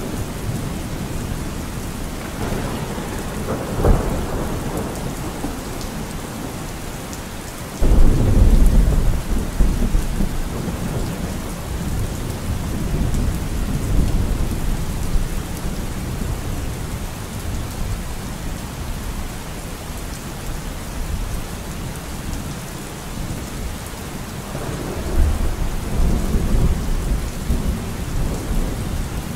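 Thunderstorm: steady rain with thunder. There is a sharp crack about four seconds in. A loud low rumble starts suddenly about eight seconds in and fades over several seconds, and another rumble comes near the end.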